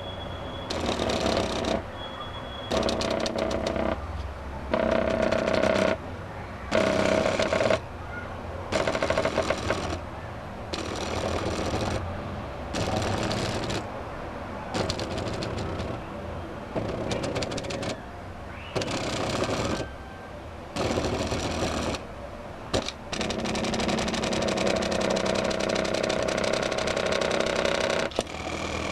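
Stepper motors of a homemade two-and-a-half-axis CNC plotter buzzing as it moves through G-code, in short runs that start and stop every second or two, with a lower hum between moves.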